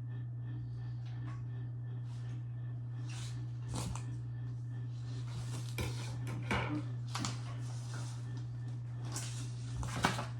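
Irregular clicks, taps and rustles of computer parts, cables and packaging being handled, over a steady low hum; the sharpest click comes near the end.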